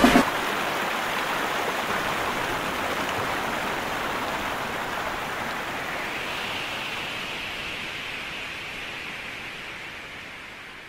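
Waterfall: a steady rush of falling water that fades gradually and dies away near the end.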